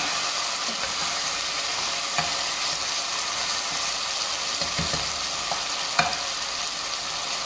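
Canned sardines frying with sautéed garlic and onion in hot oil, sizzling steadily as a slotted spatula stirs them. The spatula clicks sharply against the pot a couple of times.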